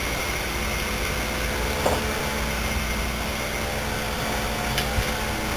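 Steady machine hum and hiss with a faint high whine, and a couple of light clicks.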